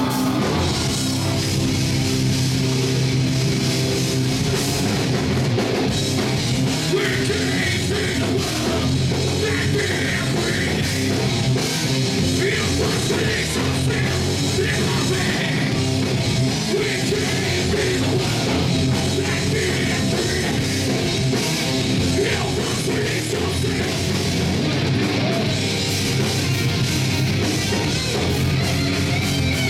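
Heavy metal band playing live at full volume: distorted electric guitars, bass guitar and a pounding drum kit, steady and dense throughout.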